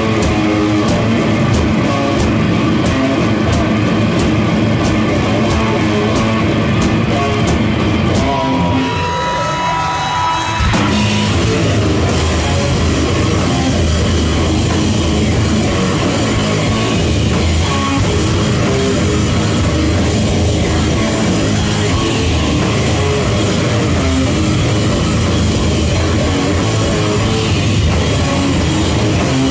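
Heavy metal band playing loud live: distorted electric guitar and a drum kit with crashing cymbals. About nine seconds in the low end drops away for a couple of seconds under a rising pitch slide and a held high tone, then the full band comes back in.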